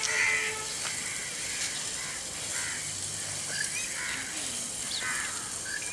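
Water sloshing in a plastic bucket as pieces of rohu fish are rinsed by hand, with crows cawing now and then.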